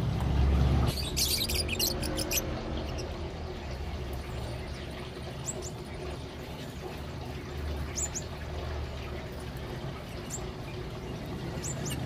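Caged lovebirds giving short, shrill chirps: a cluster of calls about a second in, then single high chirps every couple of seconds, over a steady low background rumble.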